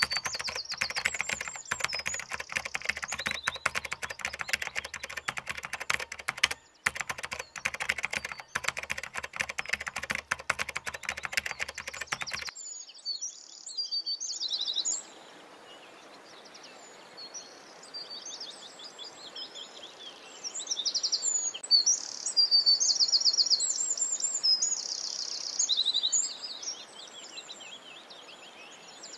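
Wild birds singing, with repeated high chirps and trills. For roughly the first twelve seconds a dense, irregular crackling of clicks runs under the birdsong and then stops abruptly.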